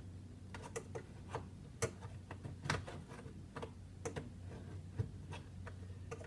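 Light, irregular clicks and taps, a couple a second: an old keyless lock being worked and rattled by hand.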